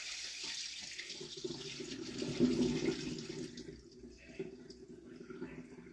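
Rice rinse water poured off into a kitchen sink: a splashing pour that swells about halfway through and tapers off near the end.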